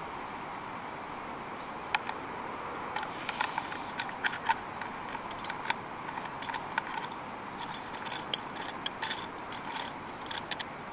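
Light metallic clinks and clicks of small metal objects being handled, in an irregular run starting about two seconds in, over a steady hiss.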